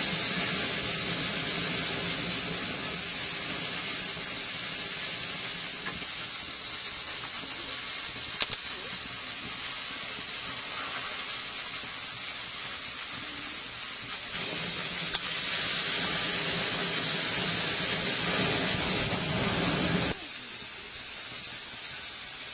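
Burger patties sizzling on a flame grill: a steady hiss with two sharp pops, growing quieter about 20 seconds in.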